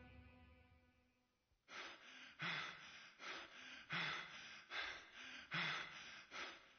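A held musical chord fades out, then a person pants heavily, with a steady run of loud in-and-out breaths about once every three-quarters of a second.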